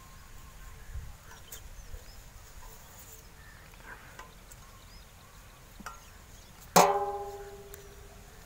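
Faint small clicks and scrapes of a knife working the rind off an aloe vera leaf, then near the end a single sharp metallic clang of metal cookware being struck, ringing out for about a second.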